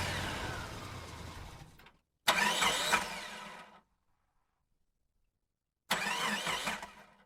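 Three short, separate engine and vehicle sounds, each cutting in abruptly and fading out, with dead silence between them.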